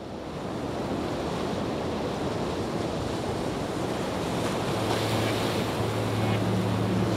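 Steady rushing ambient noise fading in, joined about four seconds in by a low held drone of ambient background music.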